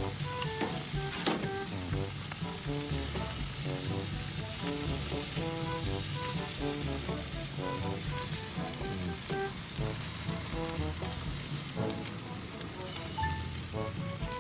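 Sauce-glazed pork ribs sizzling on a grill grate, a steady crackling hiss, with light background music underneath.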